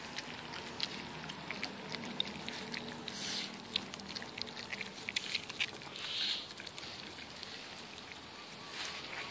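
Two puppies eating cooked rice from a plastic bowl: quick, irregular small clicks of chewing and smacking.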